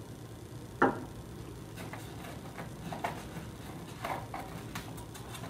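Micropipette and plastic tips being handled while changing to a fresh tip: one sharp plastic click about a second in, then a scatter of lighter clicks and taps.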